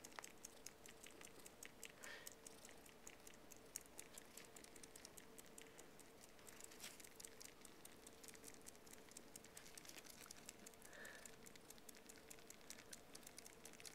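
Faint, rapid, irregular wet clicking and smacking of Siamese kittens suckling on a plush toy squirrel, over a faint steady hum.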